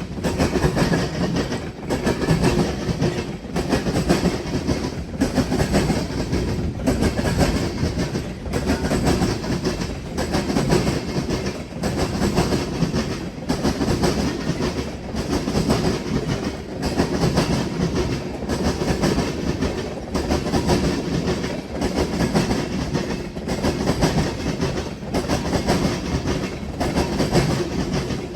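Freight train cars, likely tank cars, rolling over a railroad diamond crossing: steel wheels clatter across the crossing frogs in a steady repeating rhythm, about one cluster of clacks every second and a bit.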